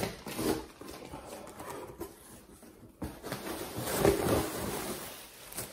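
A cardboard box being torn open and its flaps rustled, then a thin plastic bag crinkling as it is pulled out, loudest about three to five seconds in.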